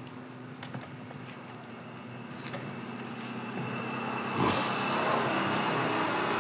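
Engine noise of a passing motor vehicle over a steady low hum, growing louder through the second half. Faint clicks and rustles of dry palm straw being handled.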